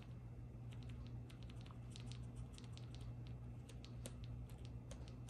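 Wooden stick stirring epoxy resin tinted with blue mica powder in a small plastic cup, making faint, irregular clicks and light scrapes against the cup as the powder is mixed in. A steady low hum runs underneath.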